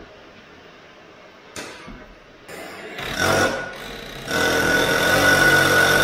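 Hand-held power tool working at a semi trailer's bare brake hub, after a couple of metal knocks: a short burst about three seconds in, then a longer steady run with a whine from about four seconds in.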